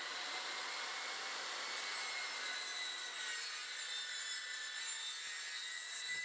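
Circular saw on an aluminium guide rail cutting through a small one-by board: a steady high whine with the rasp of the blade in the wood, which drops off sharply near the end as the cut finishes.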